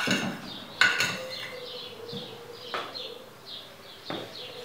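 Hand whisk knocking and scraping in a plastic mixing bowl while mixing pancake batter, with four sharp knocks against the bowl. Short high chirps repeat throughout.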